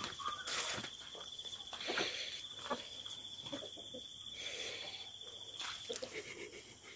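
Insect trilling in a steady, fast-pulsing high tone that stops about six seconds in, with scattered rustles and knocks from movement through the grass.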